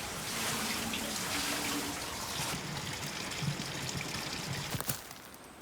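Water running and splashing steadily at a small water wheel, dropping off near the end after a few clicks.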